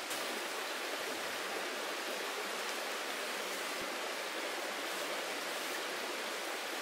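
Shallow mountain stream flowing over a stony bed, a steady, even rushing hiss.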